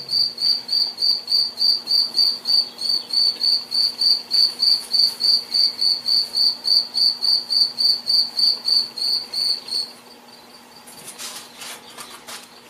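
A cricket chirping steadily, about three short high chirps a second, falling silent about ten seconds in; a few faint rustles follow.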